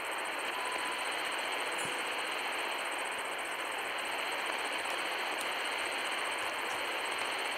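Shortwave receiver's speaker hissing with steady band noise and static, its audio cut off above about 4 kHz the way an AM radio's is. A short faint whistle, like a weak carrier, comes through about a second in.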